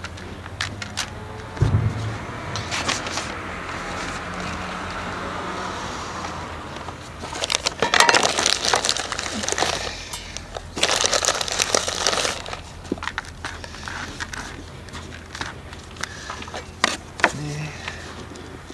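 Potting soil being scooped and stirred in a plastic bucket with a plastic scoop and gloved hands: gritty crunching and rustling in two longer spells, with scattered clicks and a dull thump about two seconds in.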